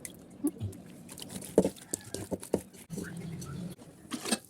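A series of irregular clicks and light knocks, the sharpest about a second and a half in and again near the end, with a short low hum about three seconds in.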